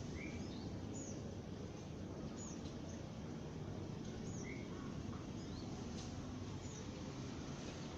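Eurasian tree sparrows chirping: short, high, scattered chirps, about one a second, over a steady low background rumble.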